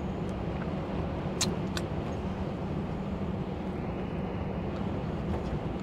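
Steady drone of a lorry's engine and road noise heard from inside the cab while driving, with two faint ticks about a second and a half in.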